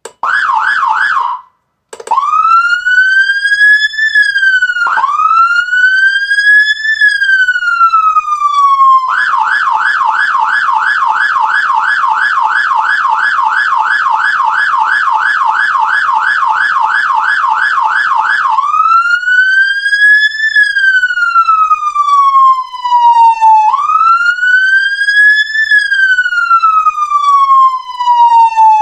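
Whelen Alpha 12 electronic siren sounding loudly through its regular tones. A brief fast warble cuts off after about a second and a half. The slow rising-and-falling wail follows, each sweep about five seconds long. About nine seconds in it switches to the fast yelp, roughly three to four warbles a second, then goes back to the wail a little past halfway.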